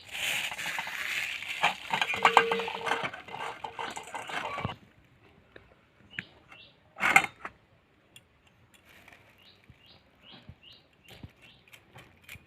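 Flour being scooped and poured with a small bowl: dry rustling and scraping with light clinks of the bowl for about five seconds, then a single sharp knock about seven seconds in.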